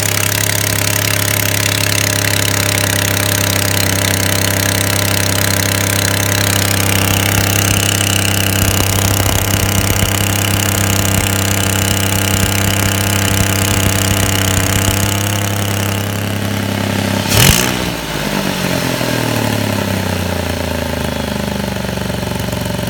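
2017 Chevrolet Impala V6 running at a steady fast idle on a cold start with an exhaust leak sound, coming from the catalytic converter and its heat shield. About seventeen seconds in there is a brief loud burst, after which the engine speed drops and settles lower.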